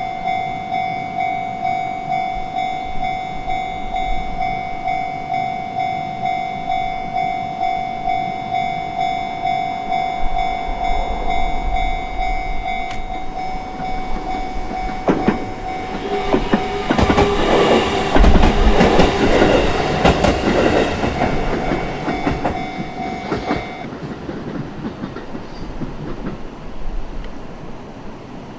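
A Japanese railway level-crossing alarm rings in a steady two-tone chime, about one and a half strokes a second. A train passes over the crossing with its wheels clattering over the rail joints, loudest around two-thirds of the way through. The alarm cuts off as the train moves away.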